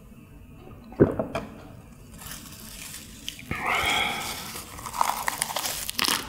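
A small glass is set down on a wooden table with a sharp knock about a second in. Fresh salad leaves then crinkle and rustle as they are folded around slices of pressed meat, and a crisp crunch comes near the end as the wrap is bitten into.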